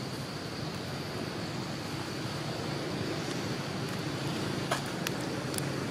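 Steady outdoor background noise with a low rumble and a thin, high, steady tone above it. A few sharp clicks come near the end.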